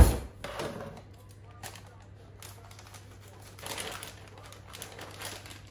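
Kitchen handling sounds: a sharp knock as something is set down, then light clicks and crinkly rustling of packaging while cheese is weighed out.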